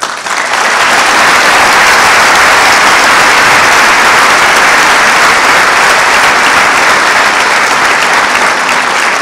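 A large audience applauding: dense, steady clapping that starts at once and keeps up throughout.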